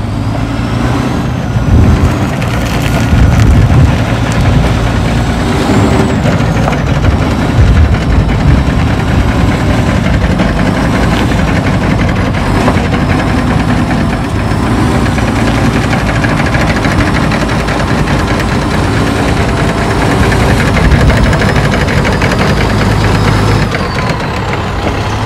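A wheel loader's diesel engine working under load as it moves a dead wheel loader, running steadily, with thin high squeals that rise and fall now and then.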